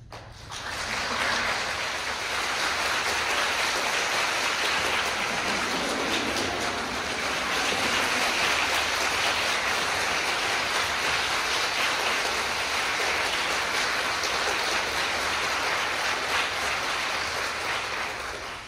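Audience applauding, a dense steady clapping that breaks off abruptly near the end.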